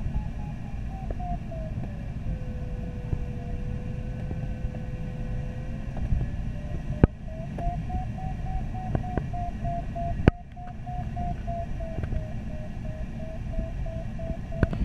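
Glider cockpit with the steady rumble of airflow and an audio variometer beeping at a slowly wavering pitch, the beeps of a glider climbing in lift. For a few seconds after the start it changes to one steady lower tone, the vario's sink signal, then goes back to beeping. Sharp electrical crackles from a recording fault cut in twice, about seven and ten seconds in.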